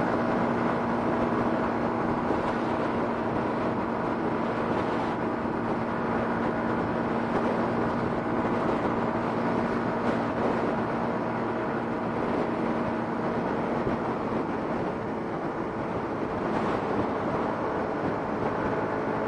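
Motorcycle riding at a steady speed: a steady engine hum mixed with wind and road noise.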